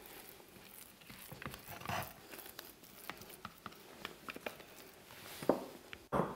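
Silicone spatula scraping thick hummus from a glass food-processor bowl: soft scrapes, squelches and light ticks of the spatula against the bowl and blade stem, with a louder knock about five and a half seconds in.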